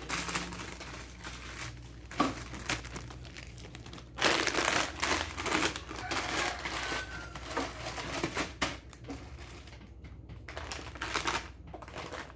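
Plastic food packaging crinkling and rustling as packets are handled and moved about, in irregular spells, loudest about four seconds in.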